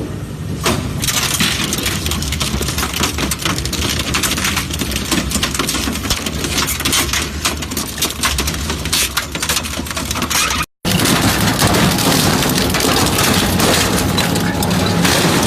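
Industrial scrap-metal shredder running: a steady low machine drone under dense clattering and crunching of metal being torn up. The sound cuts out completely for a moment about eleven seconds in, then resumes.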